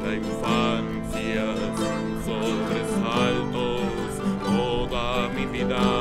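Acoustic guitar and mandolin playing an instrumental folk passage together, the guitar settling into a steady plucked rhythm about three seconds in.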